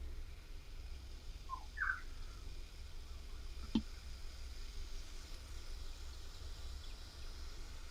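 Quiet eating and mouth noises over a low steady hum: two short squeaky mouth sounds about two seconds in, then a single sharp click midway.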